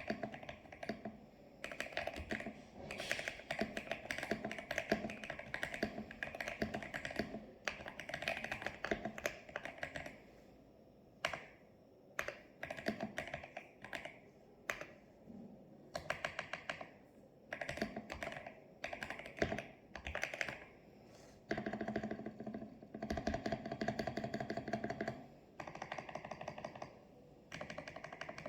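PC75B mechanical keyboard with lubed switches and lubed stabilizers being typed on: runs of fast keystrokes, broken about a third of the way in by a stretch of slower single key presses.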